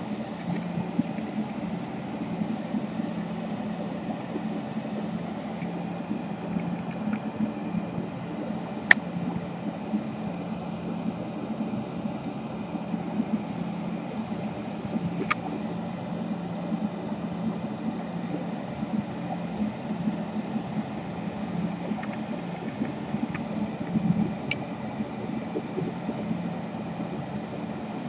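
Steady low mechanical hum, with three sharp clicks spread across it.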